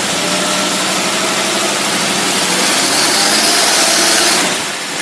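Engine running at high revs under heavy dyno load on a Rochester single-barrel carburetor, pulling strongly as the carburetor's power valve kicks in. It grows a little louder toward about four seconds in, then drops off about half a second later.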